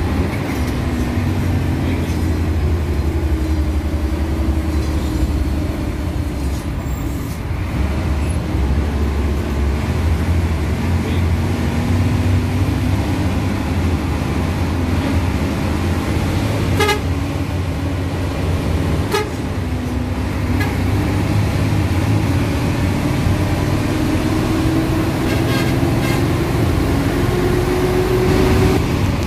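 Intercity bus engine running with a steady low rumble, its pitch rising as the bus accelerates in the second half. Two brief horn toots a little past the middle.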